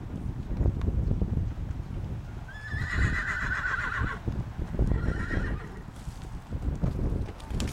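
A horse whinnies: one long wavering call about two and a half seconds in, then a shorter one about five seconds in. Beneath it run the dull thuds of horses' hooves trotting on soft arena dirt.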